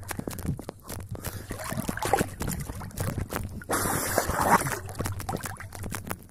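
Wet seine net being hauled into a small boat: water trickling and splashing off the mesh, with scattered clicks and knocks of the gear and a louder burst of splashing about four seconds in.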